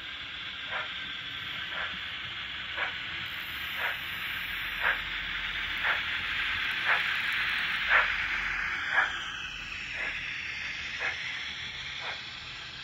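Sound-equipped model of RENFE steam locomotive 240-2213 running past: a steady steam hiss with a sharp chuff about once a second, growing louder as it passes and easing off near the end.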